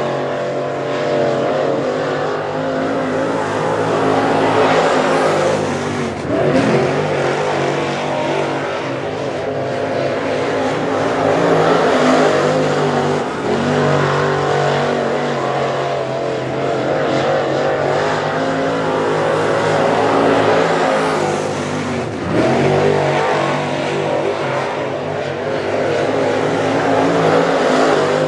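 A dirt late model race car's V8 engine running hard laps. Its note swells and falls back again and again as the car goes round the track, and dips briefly as the driver lifts off.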